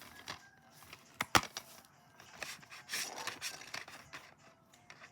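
A plastic DVD case and its shrink wrap being handled: two sharp clicks a little over a second in, then quieter rustling.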